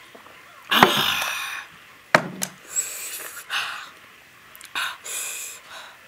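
A woman panting and blowing out hard through her mouth after eating very spicy food: a long breathy exhale about a second in, then a string of short, sharp breaths. A metal cup is set down on the wooden table with a knock about two seconds in.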